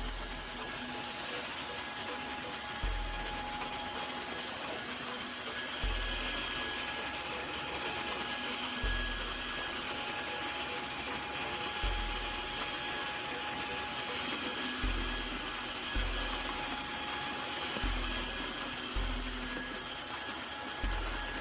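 Tineco Floor One F3 cordless wet-dry vacuum running steadily as it picks up coffee grounds from a floor. A deep low thud comes about every three seconds, closer together near the end.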